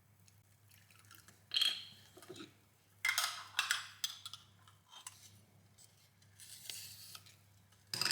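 Kitchen handling sounds during food preparation: a handful of short clatters, scrapes and clinks of utensils and dishes, a second or two apart, with a sharper knock near the end.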